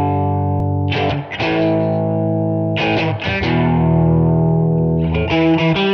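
Intro music on a distorted guitar: chords struck and left to ring out, struck again about a second in and near three seconds, then a run of quicker chords near the end.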